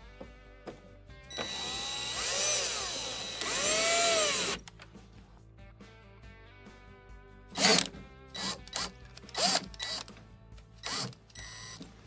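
Milwaukee cordless drill/driver driving hex screws into a plastic panel: two runs of about two seconds, the motor whine rising and falling, then several short trigger bursts.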